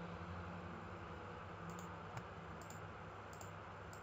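Computer mouse clicking repeatedly, often in quick pairs, starting about a second and a half in, over a steady low hum.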